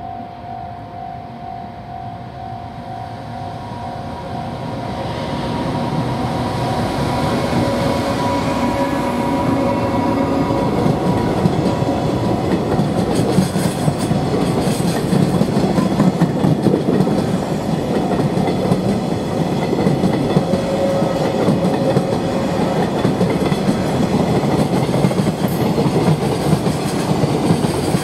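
An EF510 electric locomotive hauling a container freight train comes closer and passes, then the container wagons roll by with a steady clickety-clack of wheels over the rail joints. The sound swells about four to six seconds in as the locomotive goes past, and a level-crossing warning bell rings at first and fades.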